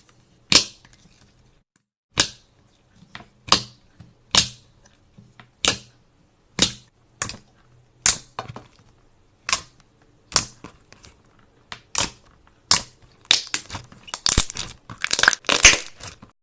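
Brittle material being crushed or cut: a series of sharp, crisp crunching cracks, roughly one a second, coming faster and denser near the end.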